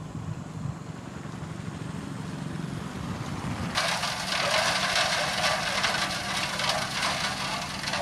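Dump truck's diesel engine running with a low rumble. About four seconds in, a louder, continuous crackle of crushed gravel pouring from the tipped bed takes over, many small stones rattling together.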